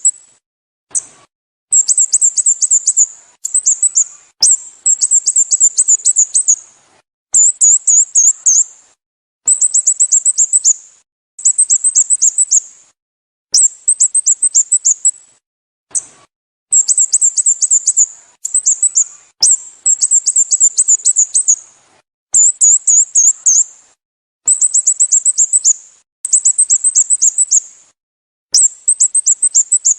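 Sooty-headed bulbul calling: rapid runs of high, clipped, falling notes, each run lasting one to two seconds, separated by short pauses and repeated over and over.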